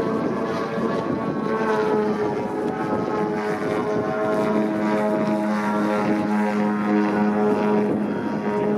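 Engine and propeller of a 104-inch Extra 300 radio-controlled aerobatic model plane running at steady power in flight. The pitch rises slightly about two seconds in, then holds with small shifts as the plane manoeuvres.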